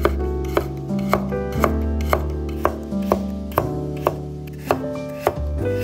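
Chef's knife slicing through carrot and striking a wooden cutting board, about two cuts a second with a short pause near the end.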